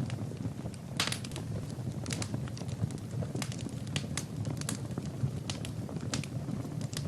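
Fire burning in a fireplace, crackling with irregular sharp pops over a low steady flame rumble.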